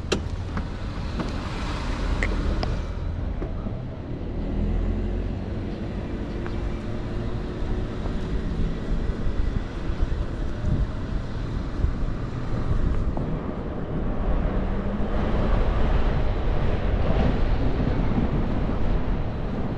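Wind buffeting the microphone of a helmet-mounted action camera on a moving electric scooter, a steady low rumble with road noise and passing city traffic.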